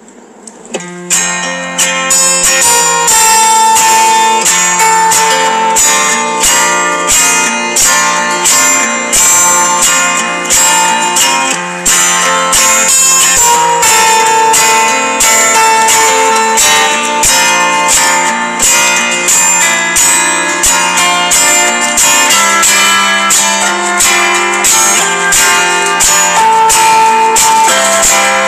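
Background music led by strummed acoustic guitar, coming in about a second in and playing on at a steady rhythm.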